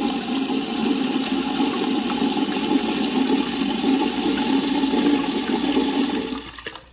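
Mains water gushing up out of an open toilet fill valve, its top cap removed, into a plastic cup held over it: a steady loud rush that flushes mineral buildup out of the valve. It stops abruptly near the end.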